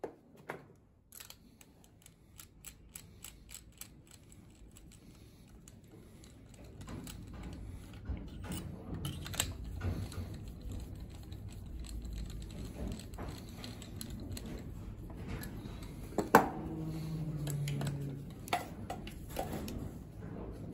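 Small clicks, clacks and rattles of gloved hands working on a VW CFFB 2.0 TDI engine's cylinder head, unscrewing and refitting the compression tester's hose and adapter to move it to the next cylinder. The clicks are most frequent in the first few seconds, with one louder clack about sixteen seconds in.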